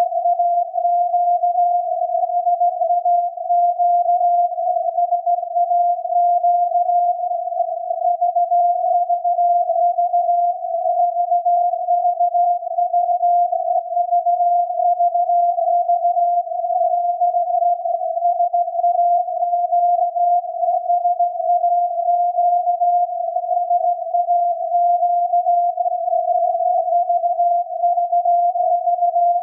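The 17.2 kHz VLF signal from SAQ, the Grimeton Alexanderson alternator transmitter, received on a loop antenna and SDR and heard as a steady tone near 700 Hz. The carrier runs unbroken with no Morse keying gaps, and its texture is slightly rough and uneven.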